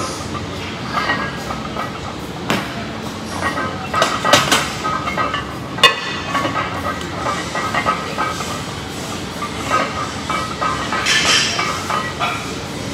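Steady rumbling din of a gym, with a few sharp clinks and knocks in the first half as the loaded barbell and plates shift during box squats, and a short hissing exhale near the end.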